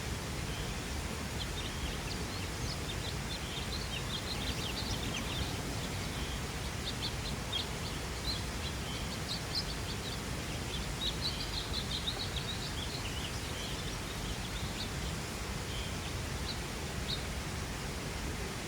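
Small birds chirping: many short, high calls, densest over the first dozen seconds and thinning out toward the end, over a steady low background rumble.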